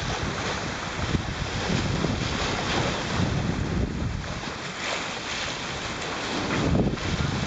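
Water rushing and splashing along a sailboat's bow as it moves through choppy sea, with wind buffeting the microphone.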